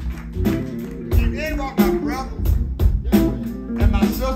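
Live funk band playing a steady groove: drum kit beat over bass guitar, with short sliding melodic phrases above it about a second in and near the end.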